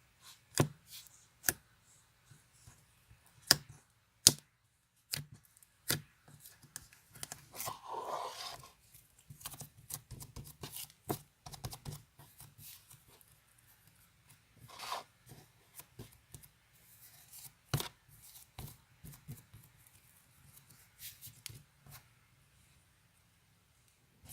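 Close-up handling sounds: a run of sharp clicks and taps, with short stretches of rustling and scraping about eight seconds in and again near fifteen seconds.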